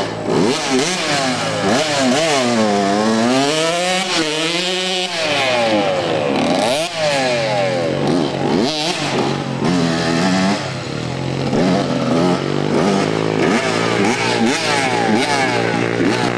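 Dirt bike engine revving hard and easing off over and over as it rides, its pitch swooping up and down. Short, quick blips of the throttle come in the second half.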